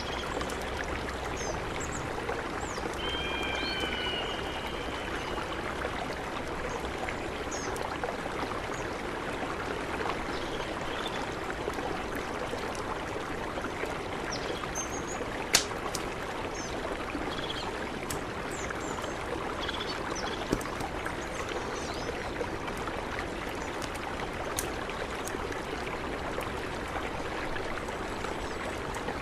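Mountain river flowing steadily, with faint high chirps over it, a short gliding call near the start and again a few seconds in, and one sharp click about halfway through.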